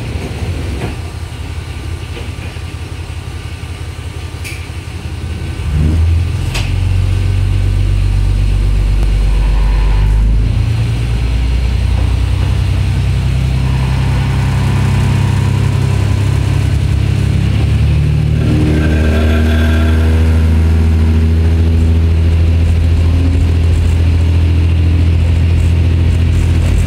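Diesel engine of an Ibara Railway IRT355 railcar, heard from the cab: it runs quietly at first, then throttles up about six seconds in as the railcar pulls away. Its note climbs again further on as it accelerates and then settles into a steady drone. A couple of sharp clicks come just before it throttles up.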